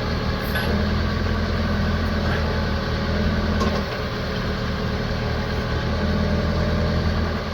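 Branson F Series compact tractor's diesel engine running steadily at slightly raised revs, driving the backhoe's hydraulics.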